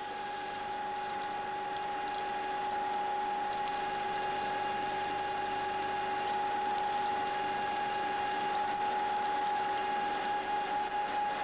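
Ward capstan lathe running at 1,260 rpm while drilling a workpiece under coolant: a steady machine whine over an even hiss, holding level throughout.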